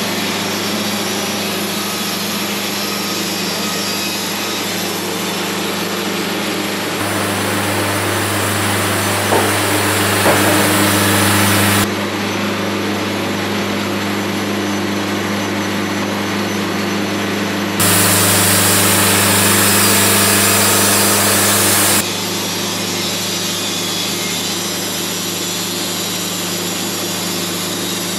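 Wood-Mizer LT70 Wide band sawmill running at a steady hum while its band blade saws through a juniper log. The sound jumps abruptly louder and brighter about seven seconds in and again about eighteen seconds in, each time for a few seconds.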